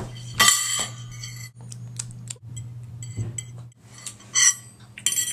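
Forks clinking and scraping against dinner plates: a few sharp ringing clinks, about half a second in, around four and a half seconds in and near the end, over a faint steady low hum.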